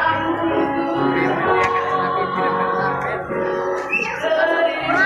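A young singer's voice singing a song over instrumental accompaniment, the notes held and running on without a break.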